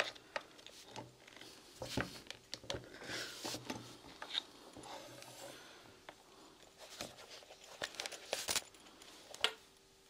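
A click as a hand press drives a hole punch through layered fabric onto a cutting mat, then scattered clicks, taps and fabric rustling as the punched piece and small metal hardware are handled.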